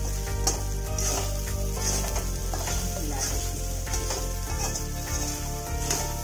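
Soaked sago pearls and diced potato sizzling in ghee in a steel kadhai while being stirred with a steel spatula, with repeated scraping strokes about once a second.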